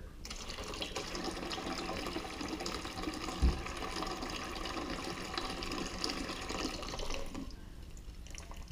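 Thin stream of water running from a reverse-osmosis drinking-water faucet into a stainless steel sink, starting just after the beginning and stopping about seven and a half seconds in. A single brief low thump about three and a half seconds in.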